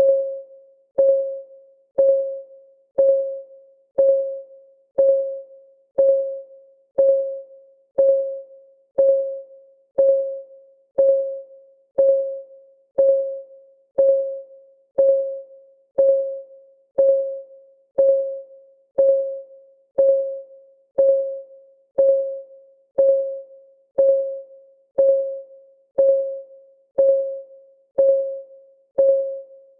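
Countdown timer's clock ticking sound: an even tick once a second, each a short click with a brief mid-pitched ringing tone that fades away.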